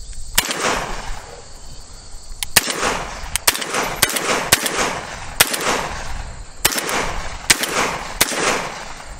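Benelli M4 semi-automatic 12-gauge shotgun firing about ten shots in quick, irregular succession, each blast trailed by a short echo.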